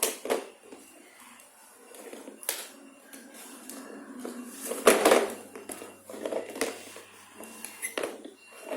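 Handling of a toy box and its packaging: scattered light knocks, taps and rustles, with the loudest knock about five seconds in.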